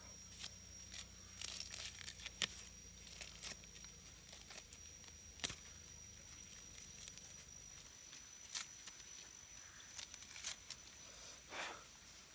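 Irregular crackles and clicks with tearing sounds, over a faint steady high whine and a low hum that fades out about eight seconds in.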